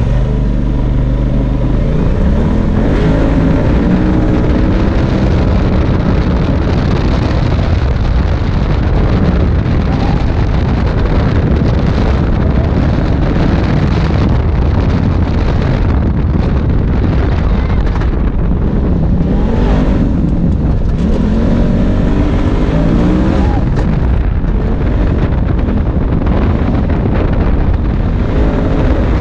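Polaris RZR side-by-side engine running hard, heard from inside the open cab. Its pitch repeatedly climbs and falls as the driver accelerates and lets off.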